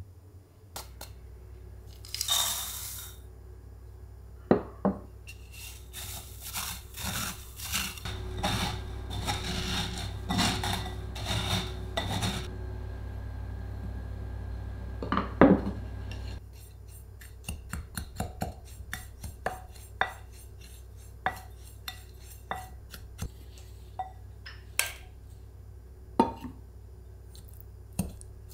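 Kitchen preparation sounds: glass mixing bowls and metal pans set down and clinking on a wooden table, with rustling and scraping in a dense stretch of clatter. This is followed by one sharp knock and then a long run of light, separate taps and clicks.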